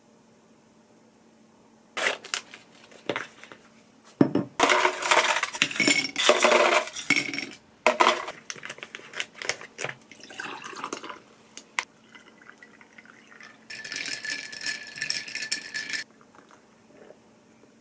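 Ice cubes clinking into a footed glass: a few single clinks, then a dense loud clatter for several seconds, then scattered clinks. Near the end comes a steadier hissing stretch with glassy ringing, liquid being poured over the ice.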